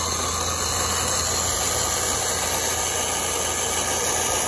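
Toy remote-control car's battery-powered electric drive motor and gearbox whirring steadily.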